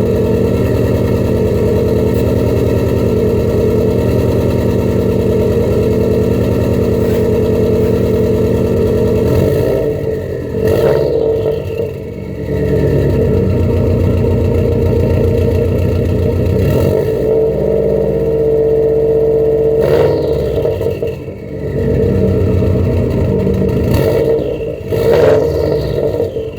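2004 Subaru WRX turbocharged flat-four through a catless straight-pipe exhaust with no resonators, idling steadily, then revved from about nine seconds in: several quick blips and one longer held rev.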